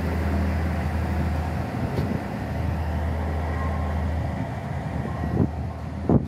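Old diesel multiple-unit train pulling away from the platform, its diesel engine running with a steady low drone. A short sharp knock comes near the end.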